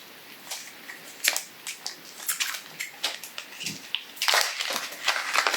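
Crinkly packaging of a loose herbal tea blend being handled, a scatter of short crackles and rustles that gets busier about four seconds in.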